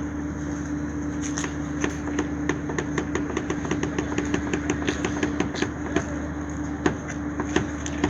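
Steady machinery hum with a held tone. A run of regular clicks, about three or four a second, starts about a second in and thins out to a few scattered clicks after about six seconds.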